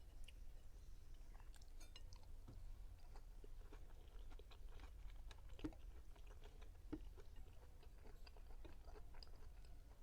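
Close-miked chewing and mouth sounds from eating Spanish-style sardines: a steady run of small wet clicks and smacks, with a couple of louder clicks midway, over a low background hum.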